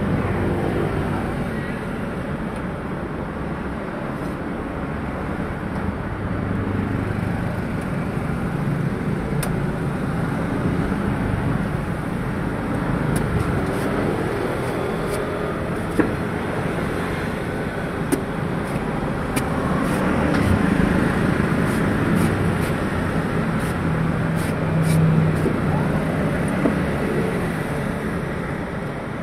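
Steady road traffic noise with vehicle engines passing, and a few sharp knocks of a large knife chopping into green coconuts.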